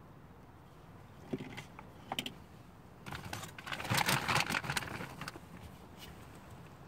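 Close crinkly rustling and crackling: a few single clicks, then a dense crackling burst of about two seconds in the middle.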